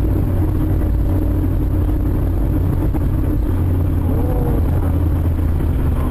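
Steady engine and tyre rumble of a car driving at about 55 km/h on a slushy road, heard from inside its cabin.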